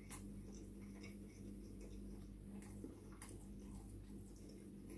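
Faint chewing of a mouthful of chicken doner kebab, with a few soft wet mouth clicks, over a steady low hum.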